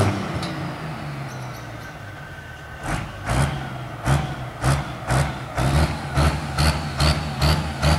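Pulling tractor's engine running as it drives along the road, with a regular pulsing beat of about two or three pulses a second. The pulses drop away for the first few seconds and pick up again about three seconds in, coming a little faster toward the end.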